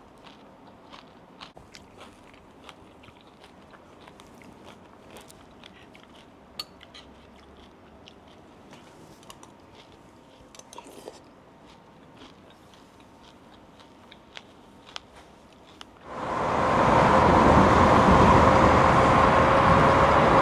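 Faint scattered clicks and handling sounds. About sixteen seconds in, a loud, steady rush of wind and road noise sets in suddenly, with a steady high whine from the P-51 electric bike's motor as the ride gets under way.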